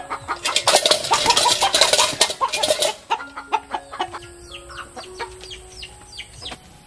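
Chickens in a burst of commotion, loud clucking and wing flapping for the first three seconds, then quieter, with short falling calls.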